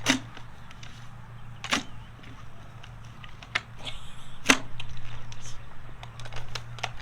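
Hammer blows: four loud, sharp strikes a second or two apart with lighter taps between, over a steady low hum.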